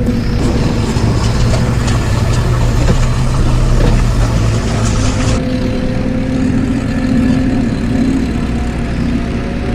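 Engine sound of a tractor or earth-moving machine running steadily at idle with a low hum; about five seconds in it changes and the higher hiss drops away.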